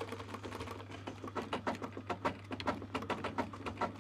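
Industrial sewing machine stitching through layered upholstery cloth: a fast, even run of needle clicks over the steady hum of its motor.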